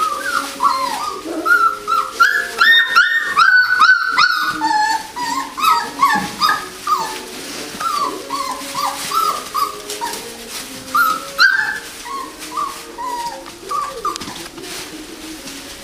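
Four-week-old poodle puppies whimpering and yipping in many short, high cries that bend in pitch. The cries come thickest in the first few seconds, then carry on more sparsely.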